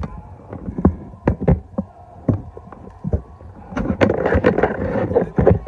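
Close knocks and rubbing on a phone's microphone from handling the phone, irregular at first, then a dense scraping, knocking stretch about four seconds in.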